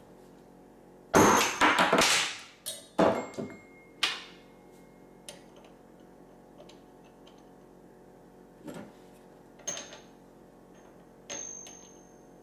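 Hammer blows on metal, staking and peening the rod end of a Cummins ISX VGT turbo actuator. A quick run of about eight strikes comes in the first few seconds, then three more spaced out later on, some leaving a short metallic ring.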